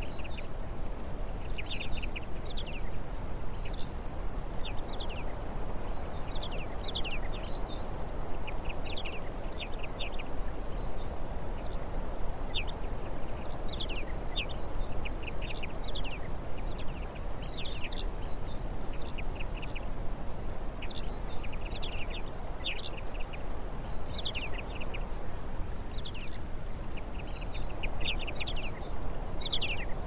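Small songbirds calling throughout: many short, high chirps, often in quick clusters, over a steady low background rush.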